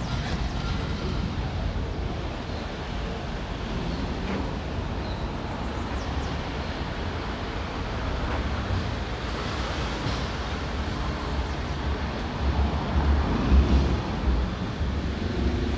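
Outdoor city street ambience: a steady wash of passing traffic, with wind buffeting the microphone as a low rumble that grows stronger near the end.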